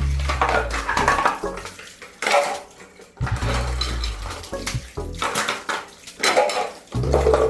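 Hard objects clattering and knocking together in repeated strokes, with some water sounds, over background music with a deep bass.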